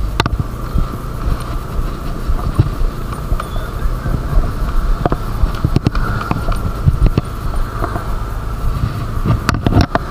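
Honda motor scooter running at low speed over a rough dirt track: a steady engine and road rumble, broken by frequent sharp knocks and rattles as it jolts over bumps.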